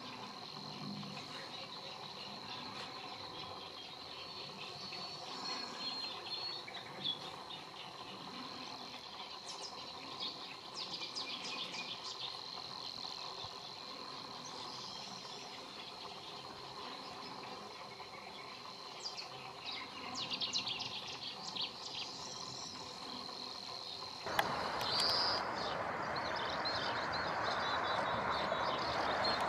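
Outdoor ambience with a steady high-pitched insect trill and scattered short bird chirps. About 24 seconds in, the sound cuts abruptly to a louder, hissier background with a single high bird note.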